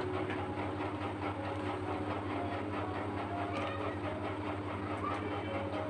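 A steady mechanical hum with a fast, regular pulse.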